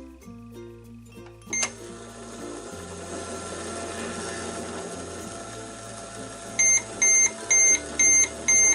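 Toy microwave running: a click sets off a steady electronic hum, and near the end five short, loud beeps follow, signalling that the heating cycle is done. Soft background music plays underneath.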